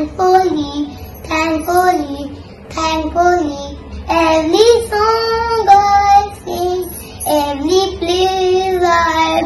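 A young girl singing solo in phrases, holding some notes longer.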